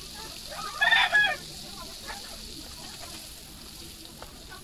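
A faint, steady sizzle of a vegetable pancake frying in oil in a wok, with a bird calling twice in quick succession about a second in; the call is the loudest sound.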